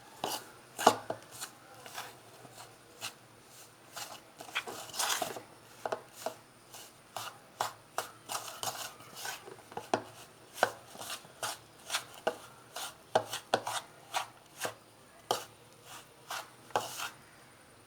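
Spoon mixing a thick batter of wheat flour, egg and grated coconut in a bowl, with sharp irregular clicks of the spoon against the bowl about two or three times a second.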